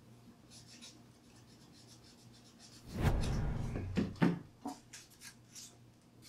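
Hobby knife shaving down a raised spot on the underside of a small battery hatch: light scratching, then a louder, longer scrape about three seconds in, followed by a few short scrapes and clicks.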